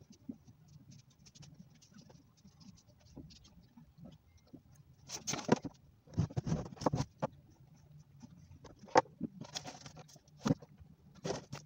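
Paper and notebooks being handled on a desk: pages turned and notebooks shifted, a run of short rustles and light knocks after a quiet first few seconds.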